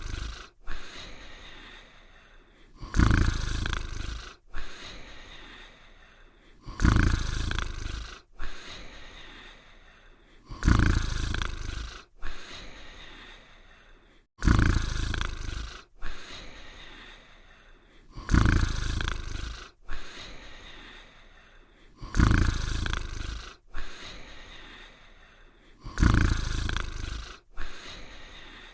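Cartoon dog snoring, a sound effect. A loud, low snore is followed about a second and a half later by a softer breath out, repeating evenly about every four seconds.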